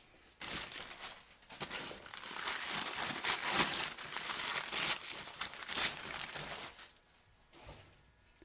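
Packing paper being crumpled and torn as it is unwrapped from around a tool, a dense crinkling that stops about seven seconds in.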